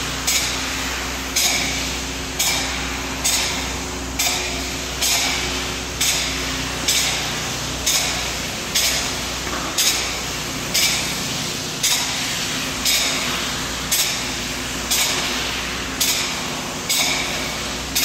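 Spray foam gun spraying closed-cell foam in short repeated passes: a hiss that starts sharply and fades, about once a second, over a steady low hum.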